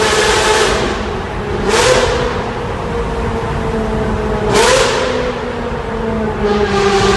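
Vehicle engine revved inside a tunnel: a steady engine note with two brief surges, each with a rush of hiss, about two seconds and four and a half seconds in.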